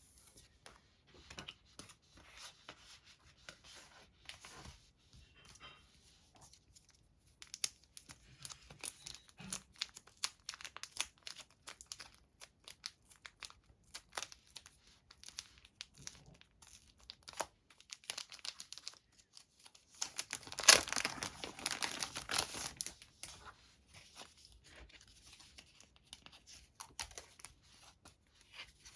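Packaging being opened by hand: scattered crinkles and rustles, with a louder stretch of tearing lasting a couple of seconds about three-quarters of the way through.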